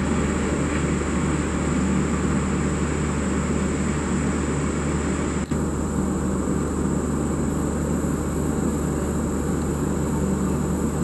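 Steady machinery drone of a halted AC express train, a constant low hum under a rushing noise with a faint high whine, unchanging apart from a brief dip about five and a half seconds in.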